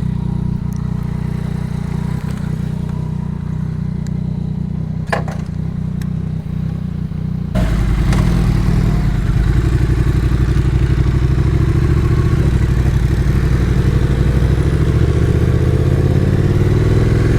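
Yamaha MT-09's three-cylinder engine running at idle, becoming suddenly louder about seven and a half seconds in as the bike gets under way. Near the end the engine's pitch rises steadily as it accelerates.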